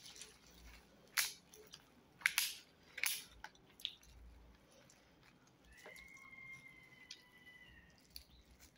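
Eating sounds: quiet chewing with a few sharp wet clicks and smacks, four of them in the first four seconds. Near the end, a faint steady high tone lasts about two seconds.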